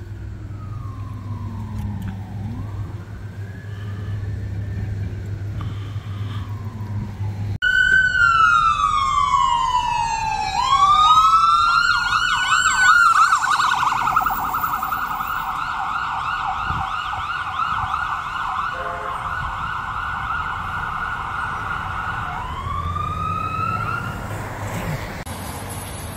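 Electronic emergency-vehicle sirens. First a faint wail; then, suddenly much louder and close, a siren slides down in a long wail, switches to a fast yelp for about ten seconds, and rises back into a wail near the end.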